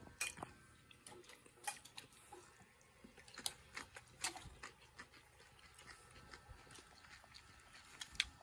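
Faint, irregular clicks and scrapes of a metal fork in a bowl as salad greens are tossed in dressing.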